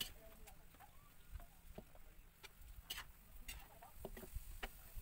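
Faint, irregular clicks and taps over a low rumble.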